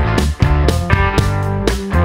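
Instrumental background music led by guitar, with notes struck in a steady rhythm of about four a second.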